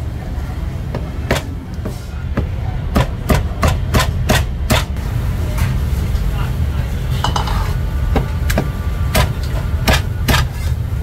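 Heavy Chinese cleaver chopping roast goose on a thick wooden chopping block: one chop about a second in, a fast run of about eight chops, then a few single chops near the end. A steady low hum runs underneath.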